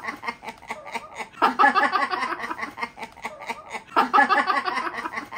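A man laughing hard in fits of quick, repeated ha-ha pulses, with two loud bursts about a second and a half and four seconds in.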